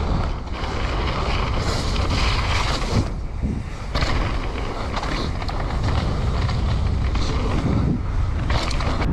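Mountain bike riding over a bumpy dirt trail: tyres rolling, wind buffeting the microphone, with scattered clicks and rattles from the bike.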